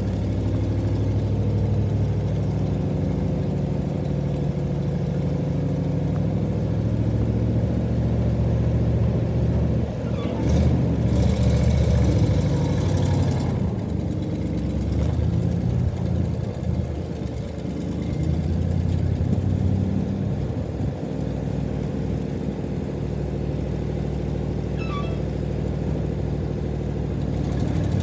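Engine of a 1966 Chevrolet Viking cab-over grain truck running and revving as the truck moves, with a louder stretch of a few seconds about ten seconds in.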